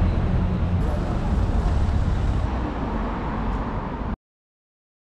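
Bus and traffic noise with a steady low engine hum, cut off abruptly about four seconds in.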